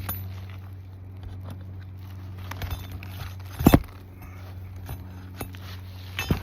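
A flat bar prying a brittle, delaminating asphalt shingle loose: scattered scrapes, clicks and taps, with a sharp double knock a little past halfway and another knock near the end. A steady low hum runs underneath.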